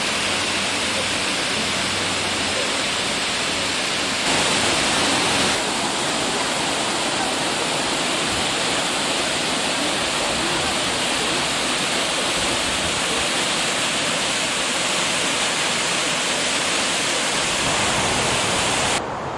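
Multnomah Falls, a tall two-tiered waterfall, giving off a steady rushing noise of falling water, briefly a little louder about four seconds in.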